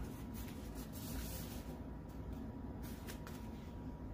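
Paper sticker-book pages rustling as they are flipped, a few short swishes over a steady low room hum.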